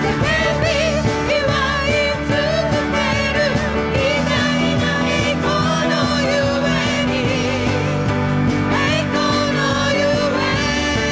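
Live worship band music: several singers' voices carry a melody over a full band with a steady beat.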